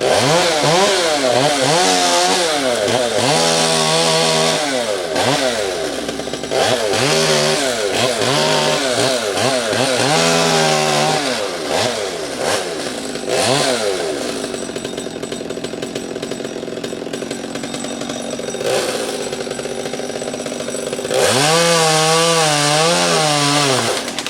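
Chainsaw starting abruptly and revving up and down over and over, dropping to a steadier, slightly quieter run for several seconds, then revving up and down again near the end.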